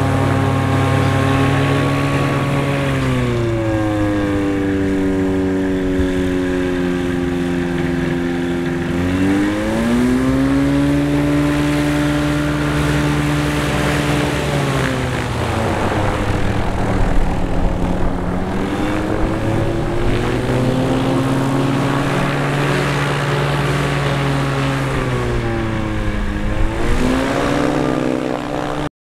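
Rotax 582 two-stroke engine and propeller of a Bushbaby Explorer light taildragger taxiing. The engine note falls and rises smoothly several times as the engine speed changes, then cuts off suddenly near the end.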